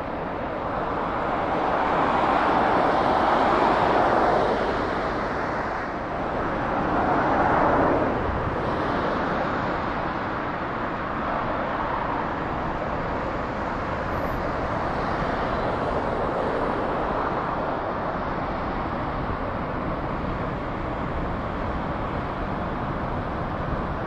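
Cessna Citation Longitude business jet's twin Honeywell HTF7700L turbofans running: a steady jet hiss that swells twice within the first eight seconds, then holds even.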